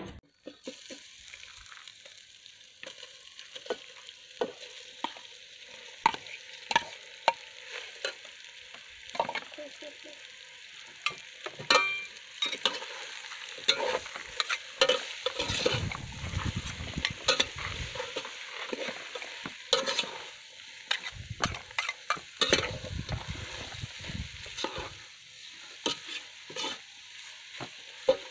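Snake meat and vegetables frying in an aluminium pot, with a steady sizzle, while a metal spatula and spoon stir and toss them, clinking and scraping against the pot's sides.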